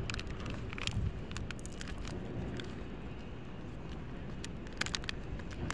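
Wind buffeting the microphone in a low, steady rumble, with scattered sharp crackles and clicks through it.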